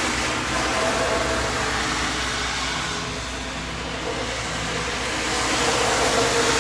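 Steady vehicle noise: a truck's engine running under a wash of traffic noise, growing slightly louder near the end.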